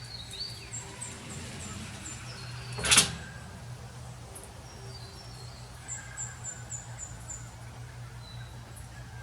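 Birds calling: quick runs of thin, high chirps, about five a second, twice, with a few lower falling notes between. One sharp knock about three seconds in is the loudest sound.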